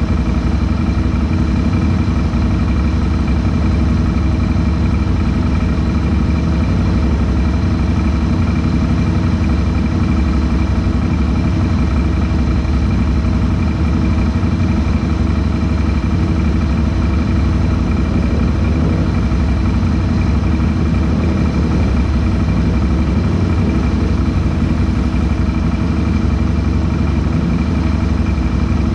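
ATV engine idling steadily close by, an even running hum with no revving.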